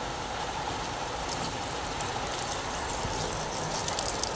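Steady rain falling, an even hiss, with scattered sharp taps that grow more frequent near the end.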